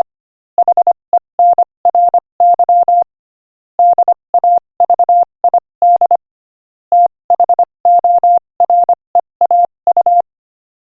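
Morse code sent at 25 words per minute as a single steady tone keyed on and off in short and long beeps. The letters come in groups with brief pauses between words. The sending stops about ten seconds in.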